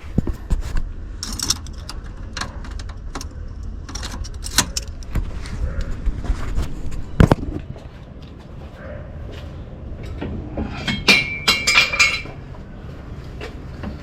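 Scattered metallic clicks and clanks of tools and parts being handled, with one louder knock about seven seconds in and a brief cluster of clinks with a short ringing tone near the end.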